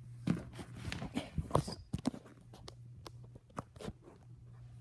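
Irregular knocks, taps and rustling handling noises, busiest in the first two seconds, over a steady low electrical hum.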